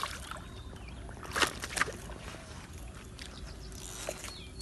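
Shallow water sloshing faintly, with two short splashes close together about a second and a half in and a smaller one near the end.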